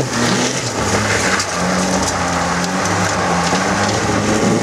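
Jeep Cherokee engine running at a steady pitch under load as it crawls up a steep rocky climb, with a constant crackling hiss of tyres grinding over loose stones and dirt.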